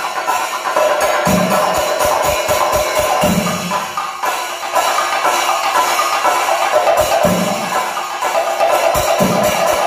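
Thayampaka on chenda drums: a fast, dense roll of stick strokes on the drumheads over deep strokes landing about every two seconds, with a metallic jingle of ilathalam cymbals.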